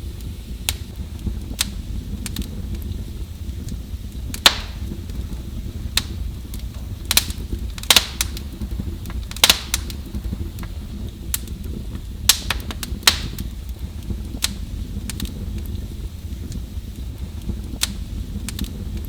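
Wood fire in a fireplace crackling: irregular sharp pops and snaps over a steady low rumble, with a few louder pops in the middle.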